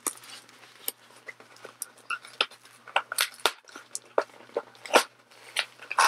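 Cardboard shipping box being torn open by hand: irregular sharp snaps, crinkles and rustles of cardboard and packing.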